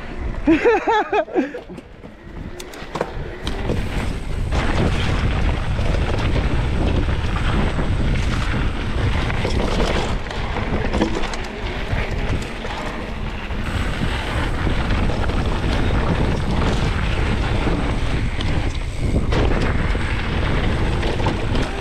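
Mountain bike descending a dirt trail: wind rushing over the microphone, tyres rolling over dirt and rocks, and the bike rattling over bumps. A brief wavering high-pitched sound comes about a second in.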